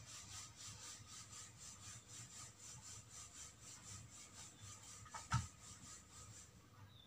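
Faint, rhythmic scratchy rubbing of a glue bottle's nozzle worked against the cloth edge of a small doll's dress, with one sharp knock about five seconds in.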